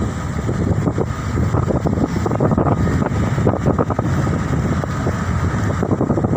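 Wind buffeting the microphone at a moving car's side window, over the steady rumble of the car driving on the road.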